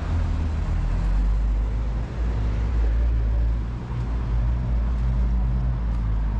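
Street traffic: a motor vehicle engine running with a low steady hum over road noise.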